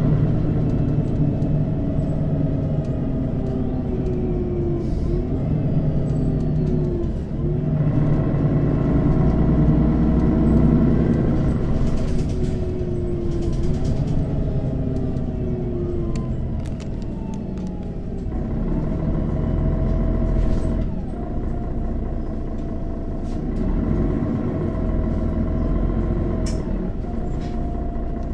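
Mercedes-Benz O 530 Citaro city bus with a diesel engine, driving and accelerating. The engine pitch rises and then drops back several times as the automatic gearbox shifts up.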